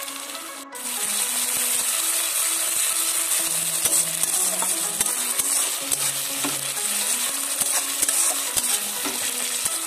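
Onion paste and chopped onion frying in hot oil in a metal karahi: a loud sizzle that jumps louder just under a second in. A metal spatula stirs and scrapes the pan, with scattered clicks.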